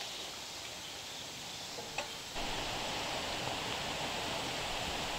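Steady outdoor background hiss with a faint click about two seconds in; a little later the hiss steps up abruptly, becoming louder and fuller.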